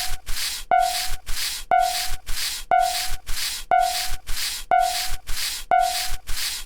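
Japanese railroad crossing alarm bell ringing in a steady 'kan-kan' rhythm, about two strikes a second, each strike a short ringing tone over a noisy clang.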